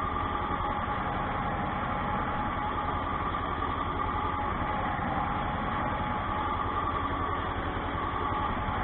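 Tractor diesel engine running steadily, heard from inside the cab, with an even low pulsing.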